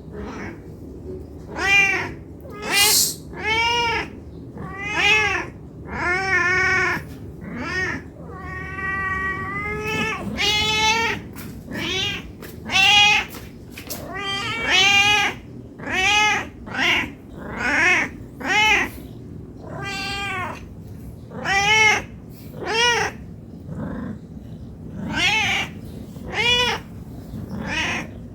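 Domestic cat meowing again and again: short calls that rise and fall in pitch, with one longer drawn-out meow about a third of the way in. These are hungry meows begging for food.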